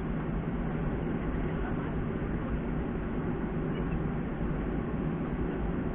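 Steady low rumble inside the cabin of a Boeing 737-300, from its CFM56 engines running at low power with the aircraft on the runway.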